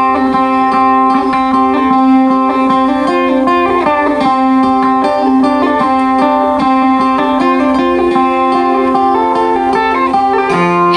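Sape, the Kayan plucked lute of Borneo, playing a melody of quick plucked notes over steady held tones; a lower held note comes in near the end.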